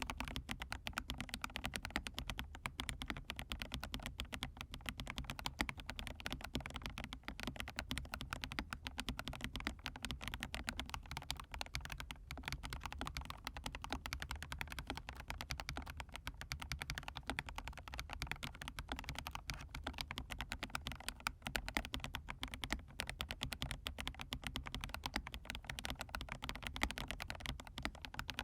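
Continuous fast typing on a mechanical keyboard fitted with hand-lubricated Huano Cherry Blossom linear switches and PBT keycaps: a dense, unbroken run of keystroke clacks.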